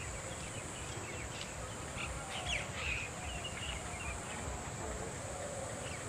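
Steady high-pitched insect drone, with scattered short bird chirps over it.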